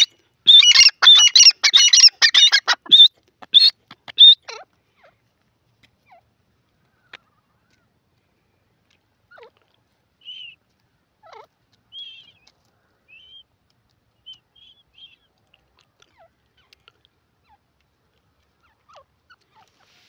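Grey francolin calling: a loud, rapid run of repeated calls for about the first four seconds, then only faint, soft chirps.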